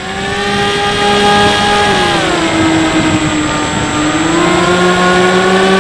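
Bixler 3 RC plane's brushless electric motor and pusher propeller whining at high throttle on takeoff, heard from the plane's onboard camera over a hiss of rushing air. The pitch drops about two seconds in and climbs again near the end as the throttle is eased and reopened.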